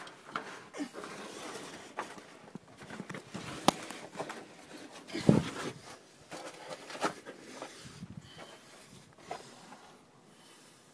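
Scuffing steps and clambering on cave rock with phone-handling noise: scattered clicks and knocks, a sharp knock about four seconds in and a heavier bump just after five, in a small echoing rock space.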